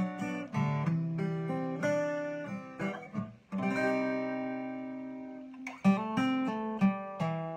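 Acoustic guitar strummed and picked, playing a chord progression, with one chord left ringing for about two seconds midway and quicker strums near the end.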